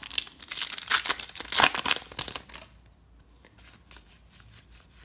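A trading card pack's wrapper being torn open and crinkled, a dense crackle for the first two and a half seconds, loudest a little under two seconds in. After that, only faint light ticks as the cards are handled.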